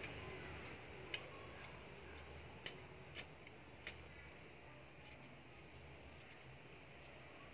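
Small hand hoe scraping and chopping into dry garden soil, with a handful of sharp little clicks in the first few seconds and fainter scratching after.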